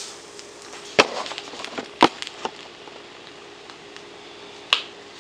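An egg frying in butter in a nonstick pan: a faint steady sizzle broken by a few sharp pops, the loudest about one and two seconds in and another near the end.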